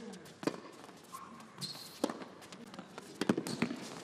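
Tennis rally on a hard court: sharp racquet strikes and ball bounces about every second and a half, with players' footsteps and a brief high shoe squeak about one and a half seconds in.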